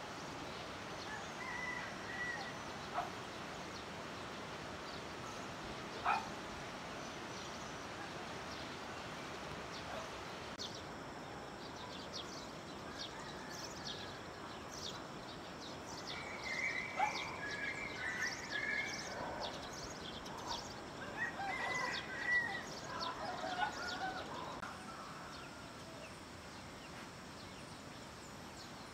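Outdoor village ambience: a steady hiss with a couple of faint clicks early on, then scattered bird chirps and calls from about ten seconds in, busiest a little past the middle before fading.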